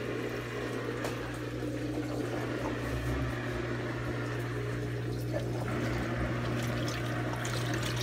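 Built-in drain pump of a KUPPET twin-tub mini washing machine running with a steady hum, emptying the wash tub through its drain hose: water pours from the hose into a toilet bowl.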